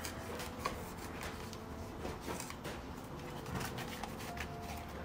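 Damp cloth rag rubbing and rustling as it wipes the inside of a plastic air-intake adapter, with small light taps scattered through, over a faint steady hum.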